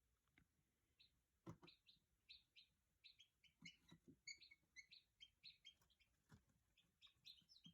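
Newly hatched chicken chicks peeping: many short, high peeps in quick succession, several a second, faint throughout. A few soft knocks come in between.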